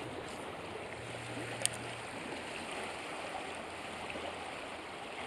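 Steady rushing of a fast-flowing river running over riffles. A single sharp click sounds once, about a second and a half in.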